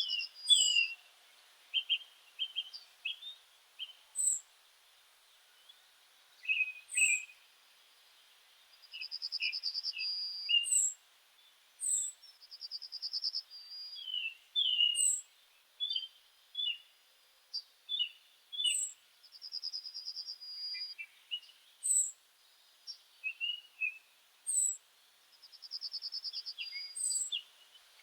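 Several birds singing and calling together: a repeated dry trill of about a second, thin high down-slurred notes every few seconds, and scattered short chirps.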